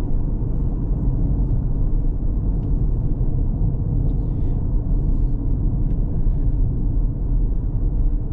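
Car driving at low speed, heard from inside the cabin: a steady low rumble of engine and tyre noise.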